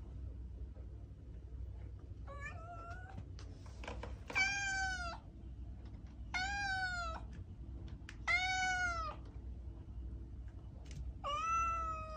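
A cat meowing five times, each meow short and dipping slightly in pitch. The first is fainter and the last four, about two seconds apart, are louder.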